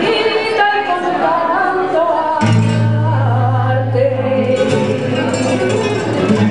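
Live flamenco music for a farruca: a singer's voice in wavering, ornamented lines over flamenco guitar, then a steady low held note comes in about two and a half seconds in.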